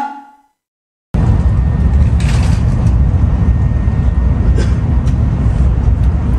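A short chime-like sound effect that dies away within half a second, then about a second of silence, then the steady low rumble of a Shinkansen bullet train's passenger cabin while it runs, with a few faint clicks.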